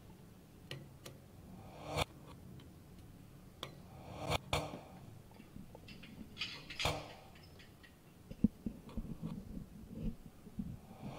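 Irregular clicks and taps. A few louder ones ring briefly. In the second half they give way to softer, denser low knocks.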